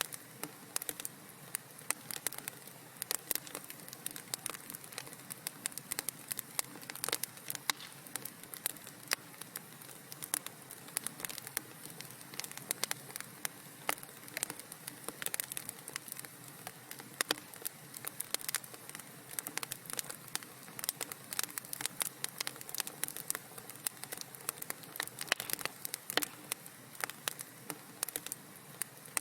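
Wood fire in a fireplace crackling steadily, with many irregular sharp pops and snaps over a soft hiss.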